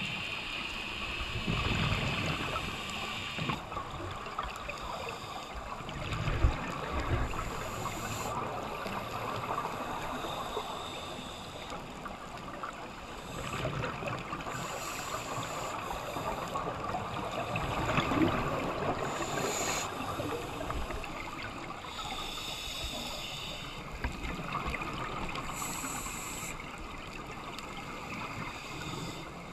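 Underwater sound of scuba divers breathing through their regulators: exhaled bubbles rush and gurgle in bursts every few seconds over a steady watery rush.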